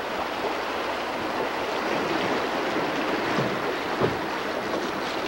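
Choppy river water splashing and lapping against a drift boat, with wind noise, as a steady rushing wash. A single short low knock sounds about four seconds in.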